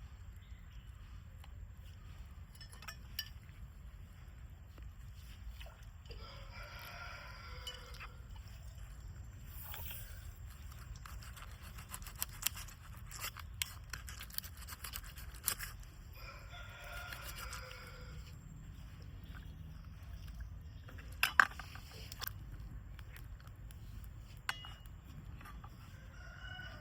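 A rooster crowing twice, each crow about a second and a half long, roughly ten seconds apart. Scattered clicks and knocks fall between the crows, and a sharp knock later on is the loudest sound.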